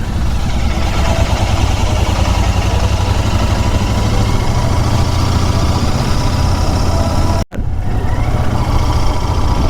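Royal Enfield Continental GT 650's parallel-twin engine running steadily, a low, even engine sound under a constant rush of noise. The sound drops out for an instant about seven and a half seconds in.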